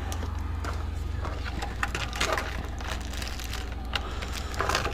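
Plastic packaging of a brake master cylinder rebuild kit crackling and clicking as it is peeled open and handled, in scattered small bursts that bunch up about two seconds in and again near the end.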